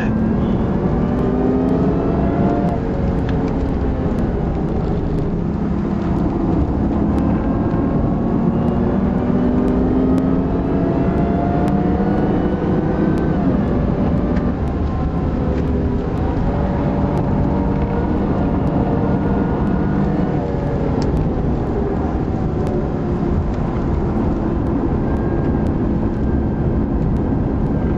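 Car engines on a race circuit accelerating hard, their pitch climbing again and again as they rev up through the gears, over a steady low rumble.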